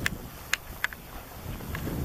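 Wind rumbling and gusting on a camera microphone, with a few short, sharp clicks at irregular moments.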